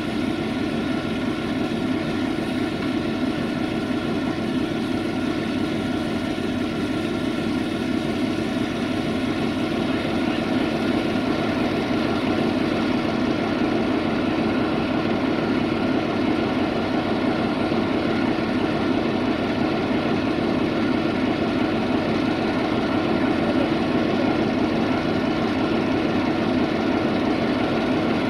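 Steady machinery drone of grain loading: grain running off a tipper truck onto a moving belt conveyor and down into a hopper wagon, with engines running underneath. It goes on without a break, growing slightly louder after about ten seconds.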